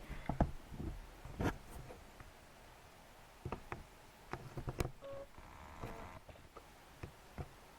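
Scattered small clicks and taps of close handling, a few single knocks and some quick clusters, at a low level.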